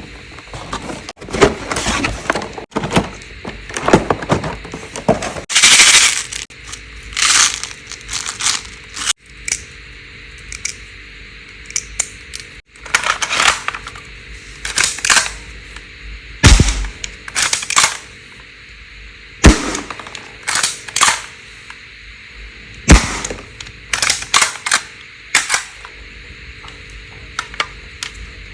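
Toy gun firing: sharp cracking shots, some single and some in quick runs of several, with short pauses between.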